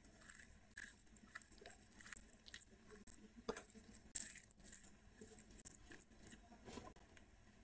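Bare fingers mashing and mixing steamed rice with fried brinjal on a plate: faint, scattered soft squishes and small clicks, with one sharper click about four seconds in.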